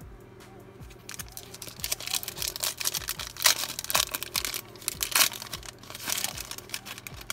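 Foil wrapper of a Panini Mosaic football card pack being torn and peeled open by hand. It crinkles and rips in quick, sharp bursts, starting about a second in, with the loudest rips near the middle.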